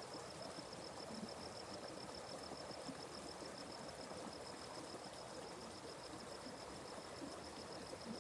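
Atlantic Forest stream flowing softly and steadily, with a high-pitched chirp pulsing evenly several times a second over the water.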